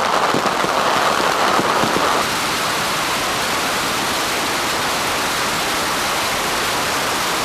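A dense barrage of bottle rockets: an unbroken hiss and crackle that swamps the microphone, dropping a little in level about two seconds in.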